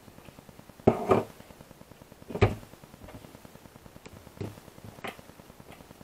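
Hands handling an RC car chassis and setting a LiPo battery pack onto it: a loud double knock about a second in, another sharp knock a moment later, then a few lighter clicks.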